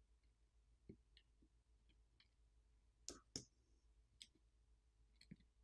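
Faint, scattered clicks and taps of small tools and phone parts being handled. The two loudest come close together about three seconds in.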